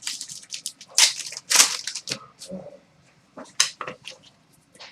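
Trading cards being handled and flipped through from an opened pack: a run of short, irregular crinkling and rustling sounds, loudest about a second and a half in.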